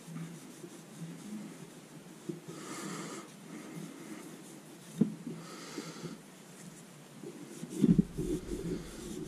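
Cloth rubbed over a polished crankshaft journal, wiping it clean to check the polish. There are two short rubbing passes about three seconds apart, a sharp tick between them, and a cluster of soft knocks and handling noise near the end.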